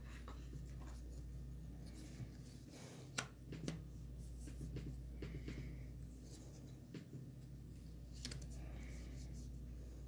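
Cardboard jigsaw puzzle pieces being handled, slid on the table and pressed into place: scattered light taps and scrapes with a few sharper clicks, the sharpest about three seconds in, over a steady low hum.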